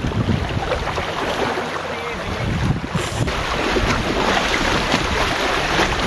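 Wind buffeting the microphone over water rushing and slapping along the hull of a Goat Island Skiff sailing dinghy moving under sail through small ocean waves.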